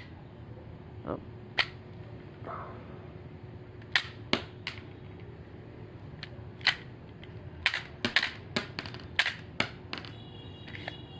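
Shell-ejecting toy M17 pistol being worked by hand: a series of sharp mechanical clicks and clacks, a few spread out at first and then coming quicker, about a dozen between 8 and 10 seconds in.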